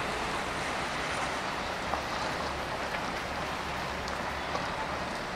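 Distant freight train behind two 060-DA diesel-electric locomotives approaching: a steady rushing noise with a low engine hum underneath.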